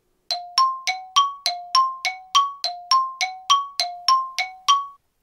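Two-note chime ringing in quick repeated strikes, about three a second, alternating a lower and a higher tone, then stopping about five seconds in. It marks the end of the soaking time for the freeze-dried meal, like a timer alarm going off.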